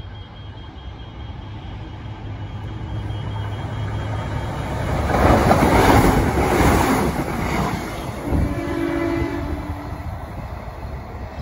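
Transperth electric passenger train passing close by: the rumble of wheels on rail and traction motors builds to a peak about six seconds in, then fades as it moves away. A train horn sounds for about a second near the end of the pass.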